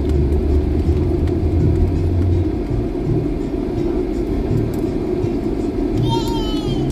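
Steady rumbling airliner cabin noise from the engines and air systems, with a deep hum that drops away about two and a half seconds in. A small child's brief high vocal sound near the end.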